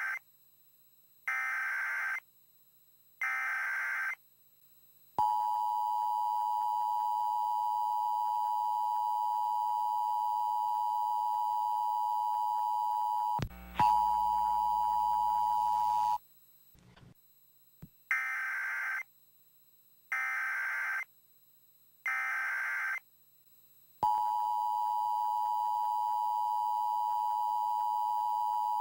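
Emergency Alert System broadcast tones: three short bursts of screeching digital header data, then the steady two-tone EAS attention signal held for about eleven seconds, with a brief crackling dropout partway through. Then come three more header bursts, and the two-tone attention signal starts again near the end.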